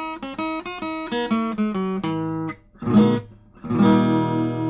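Outro music on acoustic guitar: a quick run of plucked single notes, then a chord strummed just before four seconds in that rings out.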